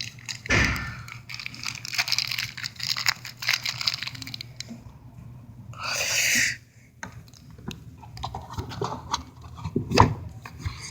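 Plastic protein-bar wrapper being handled and torn open: irregular crinkling and rustling, a short ripping noise about six seconds in, and a knock near the end.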